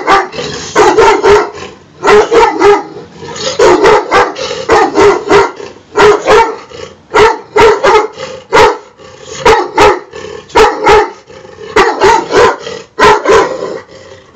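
Dog barking repeatedly and loudly, the barks coming in quick runs of two or three about once a second.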